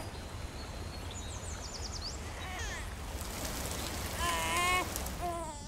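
Steady hiss of rain, with a run of high chirps about a second in and several short, wavering cries over it, the loudest a little after four seconds in.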